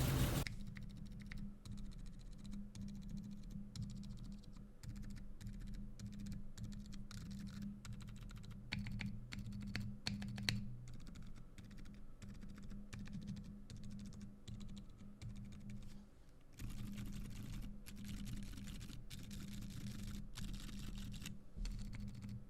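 Typing on an Iron165 R2 custom mechanical keyboard fitted with lubed Boba U4 Silent Tactile switches on a full aluminium plate: a steady run of muted, soft keystrokes, with a brief pause about 16 seconds in.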